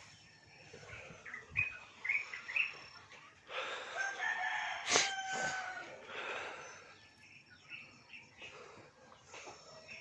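A rooster crowing once: one long call lasting a couple of seconds near the middle. Short chirping calls come a little before it, and there is a sharp click during the crow.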